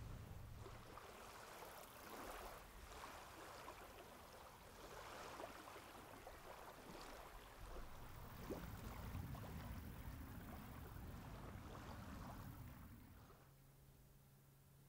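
Faint outdoor ambience, close to silence: a soft, irregular rushing noise. Near the end it drops quieter and a low steady hum takes over.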